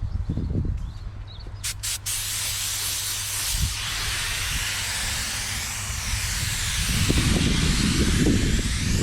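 Compressed-air paint spray gun spraying clear coat: a steady hiss that starts about two seconds in, just after two short clicks. A low rumble comes in near the end.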